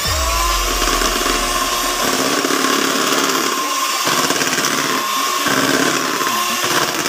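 Electric hand mixer running, its beaters whipping egg whites with cream of tartar into meringue. The motor whine rises in pitch right at the start, then holds steady.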